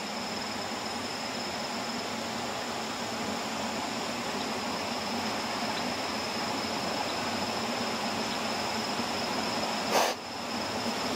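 Steady outdoor background hiss with a continuous high-pitched insect drone over it; a single brief sharp noise about ten seconds in.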